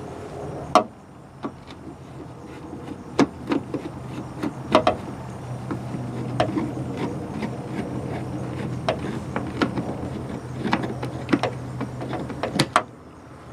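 Screwdriver turning out a screw by hand: irregular sharp clicks and scrapes of the tool in the screw head, over a steady low hum.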